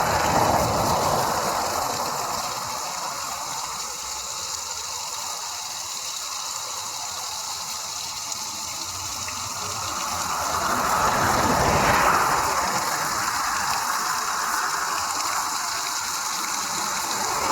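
Mountain waterfall rushing steadily, running full after heavy rain. A passing vehicle swells up and fades away about ten to thirteen seconds in, and another is just fading at the start.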